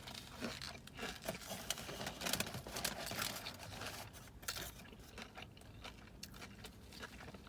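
Crinkling and rustling of food wrapping being handled while eating, a run of small crackles and clicks that thins out after about four and a half seconds.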